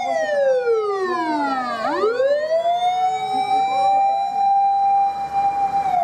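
Emergency vehicle siren wailing: one tone slides down over about two seconds while another holds steady, then it sweeps back up and holds a steady high tone until it cuts off.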